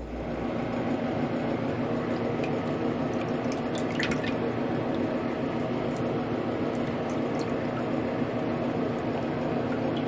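Water running steadily into a sink basin full of water, with scattered drips and small splashes as a hand moves in the water.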